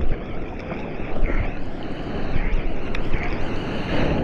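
Sea water sloshing and splashing around a camera held at the water's surface by a paddling bodyboarder, with wind rumbling on the microphone and waves breaking.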